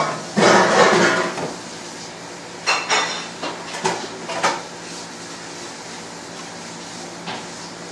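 Kitchen utensils and containers clinking and knocking while seasonings are added to chicken for a marinade. A longer ringing clatter comes near the start, followed by several short knocks.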